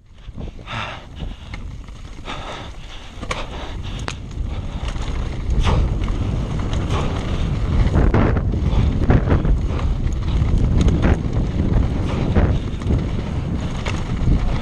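Wind rushing over an action camera's microphone, with a Canyon Sender downhill mountain bike's tyres rolling over a rocky dirt trail and repeated knocks and rattles from the bike as it hits stones. It gets louder about a third of the way in as the speed builds.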